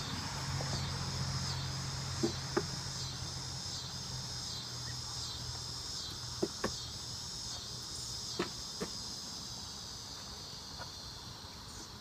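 Background insects (crickets) chirp in a steady high pulsing rhythm, nearly two pulses a second, over a low hum of honeybees around the open hive that slowly fades. Three times a pair of sharp wooden knocks sounds as the hive boxes and frames are handled.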